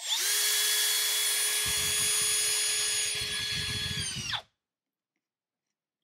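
Makita 18V cordless drill with a 1/8-inch bit drilling a weep hole into a PVC sump pump discharge pipe: a steady motor whine, with a lower rumble joining after about a second and a half as the bit works. The drill winds down and stops about four and a half seconds in, then starts again right at the end.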